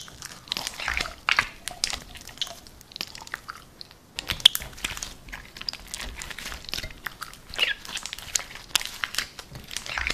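White slime being pulled from its plastic tub and squeezed in the hand, a dense run of small sticky crackles and squelches, with a short pause about four seconds in.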